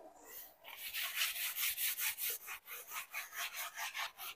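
A dry cloth rubbing liquid wax onto a matte floor in quick, soft back-and-forth strokes, about four to five a second, starting about half a second in.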